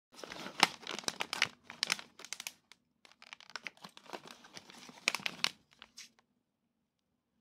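Plastic snack-bread wrappers crinkling as they are handled and picked up, in two spells of dense crackling of about two and a half seconds each, thinning out to a few crackles near the end.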